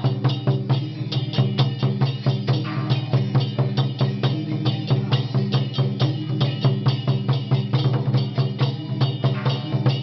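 Temple-procession percussion band: drum and cymbals struck in a fast, steady beat over a steady low hum.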